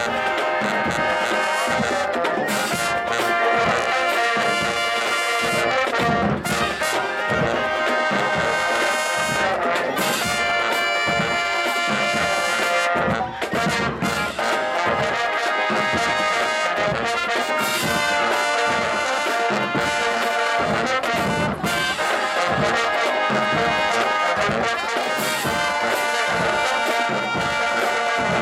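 HBCU-style marching band playing, its brass section of trumpets and trombones sounding held chords and riffs over a steady drum beat.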